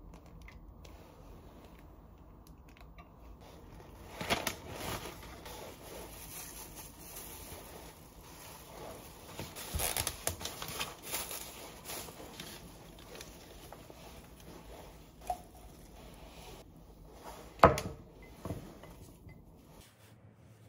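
Crinkling and rustling of a rose bouquet's paper and plastic wrapping being pulled and torn open, in irregular bursts, with a sharp click near the end that is the loudest sound.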